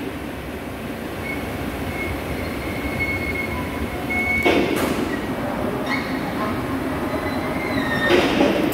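Overhead crane hoist running as it lifts one edge of a heavy machined steel disc in a sling to tip it over. The hoist gives a steady machine noise with a thin high whine that comes and goes, and it surges louder about four and a half seconds in and again near the end.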